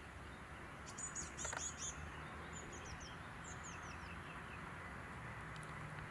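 Small birds chirping in the open: a cluster of high chirps about a second in, then a run of short, high, downward-slurred notes, over a steady low background hiss.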